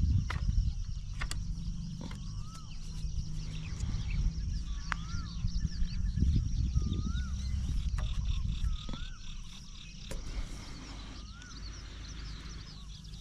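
A bird repeating a short whistled note that rises and falls, about every two seconds, over a steady high insect drone. Underneath are a low rumble and a few sharp knocks, handling of the rubber-powered fish-shooting bow being loaded.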